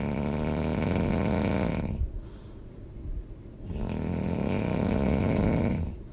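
A person snoring loud and hard: two long snores of about two seconds each, with a short, quieter pause between them.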